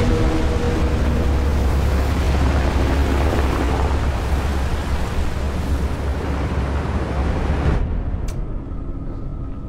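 Film sound of a warship's bow crashing through heavy swell: a deep, loud rumble with rushing water and wind. About eight seconds in it cuts off abruptly to a quieter low hum with faint steady tones and a single click.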